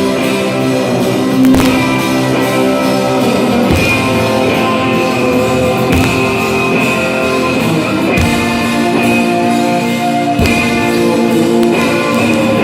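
A live rock band playing, with guitar to the fore over sustained chords.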